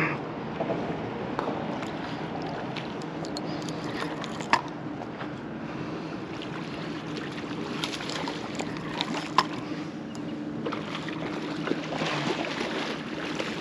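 A steady low motor hum, with a few sharp clicks or knocks, one at about four and a half seconds and another at about nine seconds.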